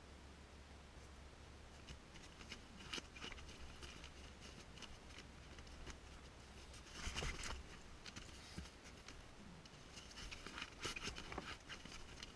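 Quiet rustling, light scraping and small knocks from handling a piece of firewood and moving about in a tent, with a brief louder rustle about seven seconds in and a run of scrapes near the end.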